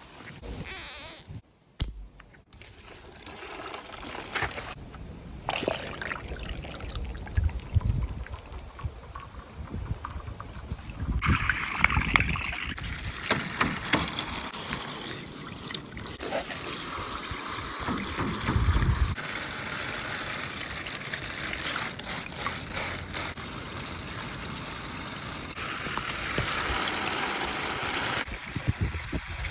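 Water running and trickling, getting louder about a third of the way in, with occasional low thumps.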